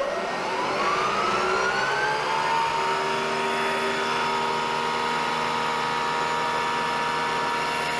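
Bridgeport milling machine spindle motor starting up: a whine that rises in pitch over the first two seconds or so, then settles into a steady hum of several tones as it runs at speed.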